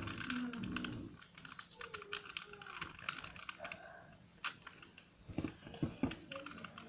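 Fingernails picking and scraping at stickers on a plastic 2×2 Rubik's Cube: a run of small irregular clicks and scratches, with a few sharper plastic clicks a little after five seconds in.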